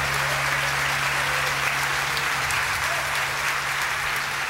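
Church audience applauding after a gospel song, with a low held note from the band sustaining underneath and stopping near the end. The clapping eases off slightly.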